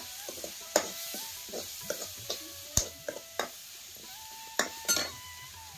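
A steel ladle stirring onion-and-tomato masala frying in a metal kadai, scraping and knocking against the pan several times at an irregular pace over a light sizzle.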